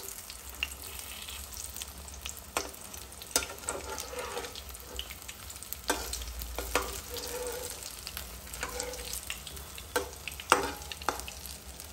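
Gram-flour-battered potato slices sizzling in hot oil in a nonstick kadhai over a low flame. A steel spatula turns them over, scraping the pan and clicking against it several times.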